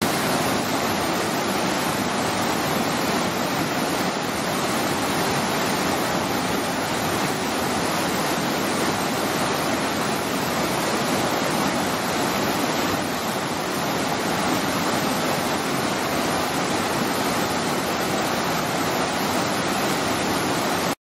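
Stream in high flow rushing over and around rocks in a small cascade: a steady, loud rush of churning whitewater. It cuts off abruptly near the end.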